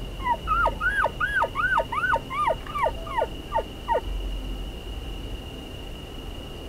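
Bull elk giving a string of about ten quick chuckles, each call rising and falling in pitch. The calls fade out after about four seconds.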